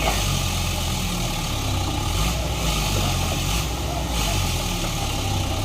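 Heavy diesel engine of an excavator running steadily with a low rumble, played in as a sound effect.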